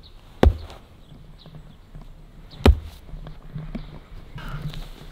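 Two sharp, heavy thumps about two seconds apart, then a bird calling a few times near the end.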